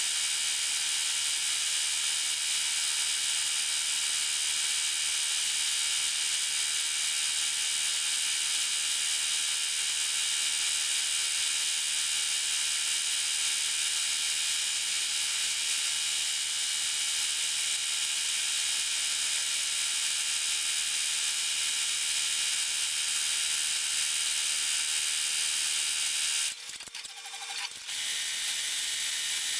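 Multi-needle embroidery machine stitching, sped up eight times, so that the stitching runs together into a steady high hiss-like whir. Near the end it breaks off briefly while the machine switches to another needle and thread colour, then carries on.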